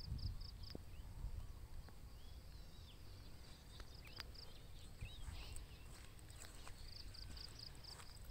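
Faint rural outdoor ambience: small birds chirping. A quick run of high pulsed notes sounds at the start and again near the end, over a low rumble with scattered light clicks from walking.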